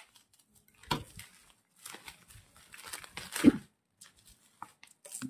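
Plastic bubble wrap rustling and crinkling as tape is pulled off a wrapped book, with a sharp crackle about a second in and a louder, lower thud about three and a half seconds in.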